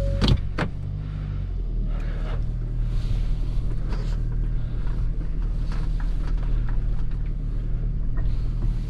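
Inside a Hyundai car's cabin: two sharp clicks right at the start, then the engine running steadily as the car drives slowly over rough gravel, with scattered faint knocks and crunches.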